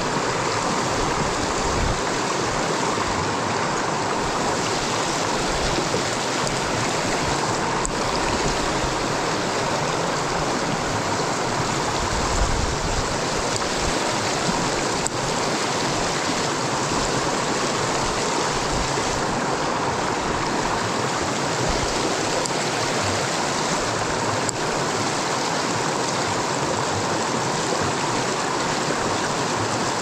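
A fast-flowing mountain stream rushing steadily, a constant even wash of water close by.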